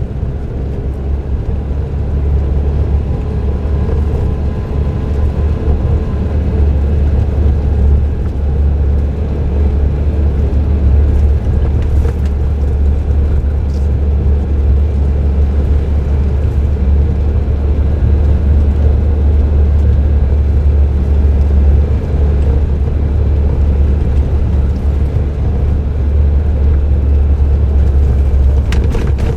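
Suzuki Jimny JB23W, its 660 cc turbocharged three-cylinder engine fitted with an aftermarket muffler, driving steadily: a constant low drone of engine and road noise.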